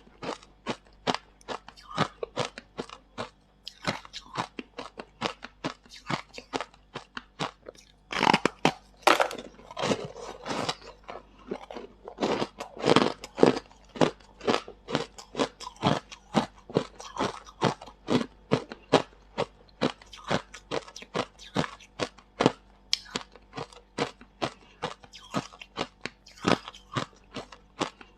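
A person chewing freezer frost close to the microphone: crisp crunches in quick succession, about two to three a second, growing denser and louder about a third of the way in and again near the middle.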